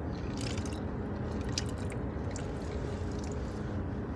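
Faint handling sounds, a few soft rustles and small clicks, as small packets of bubbles are handled in an opened bucket, over a steady low background rumble.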